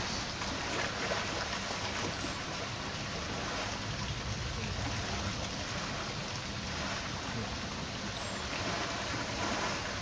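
Water splashing and sloshing steadily as elephants wallow and roll in a pool.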